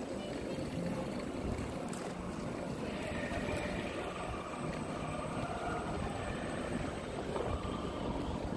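Wind buffeting a handheld phone's microphone while the phone is carried along: a steady, rough low rumble with no distinct events.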